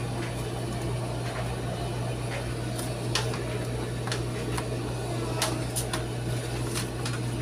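Paper pages of an owner's manual being handled and turned: short, irregular crinkles and rustles over a steady low hum.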